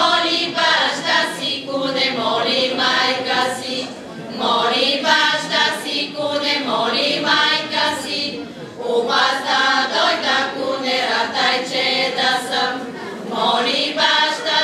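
Women's folk choir singing a Romanian Vlach folk song a cappella, in sung phrases with short breaks for breath about every four to five seconds.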